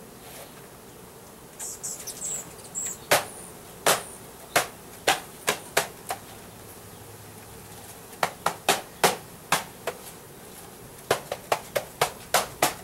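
Wooden package of honey bees being knocked to shake the remaining bees down into the hive: about twenty sharp knocks in three quick runs, after a brief scraping rustle. Under them, the steady buzzing of Russian-Carniolan honey bees.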